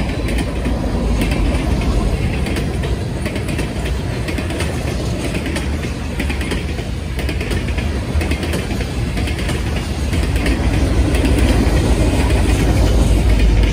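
Freight train rolling past: steel wheels clicking over rail joints under a steady rumble and rattle of hopper and tank cars. Near the end a mid-train diesel locomotive comes by and the low rumble grows louder.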